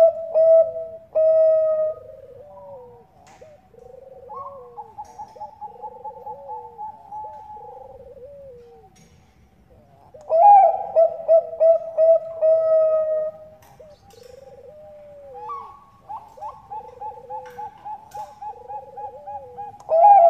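Bangkok-type zebra dove (perkutut) singing its cooing song. The phrases come about ten seconds apart: each opens loud with a quick run of stuttering coos and trails off into softer rolling notes.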